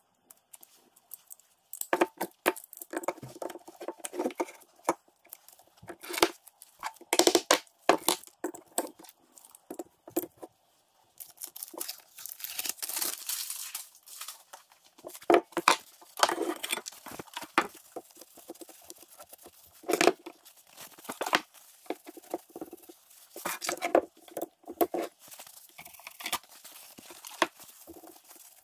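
Locking C-clamps being set and tightened on a knife handle's epoxy glue-up: irregular metallic clicks, clacks and knocks, mixed with rustling and wiping, densest about halfway through.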